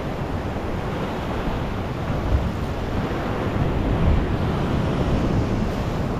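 Ocean swell surging and foaming against a rock ledge, swelling louder twice, with wind buffeting the microphone.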